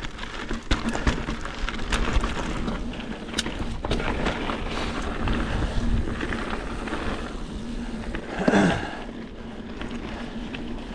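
Mountain bike ridden over a rocky, technical dirt trail: tyres crunching and the bike rattling with many small knocks, with wind on the microphone. A brief louder burst comes about eight and a half seconds in.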